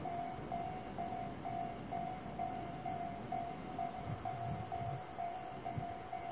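Railway level-crossing warning signal dinging a steady tone about twice a second, over crickets chirping. A brief low hum comes in about four seconds in.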